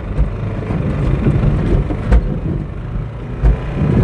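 Car running and driving over rough ground, with an engine rumble and several heavy thumps from the body and suspension.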